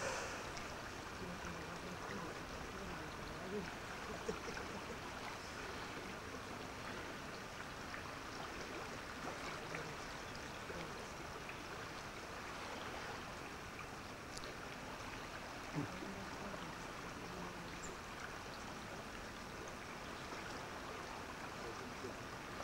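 Steady rushing of a small river's flowing water, with faint distant voices underneath and a few light knocks.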